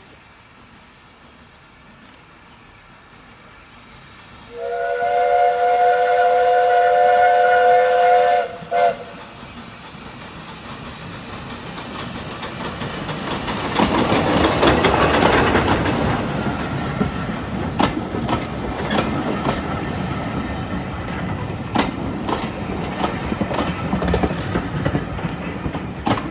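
Steam locomotive sounds a long multi-note whistle of about four seconds, then a brief second toot. It then approaches and passes close by, loudest about fourteen seconds in. Its coaches follow, their wheels clicking over the rail joints.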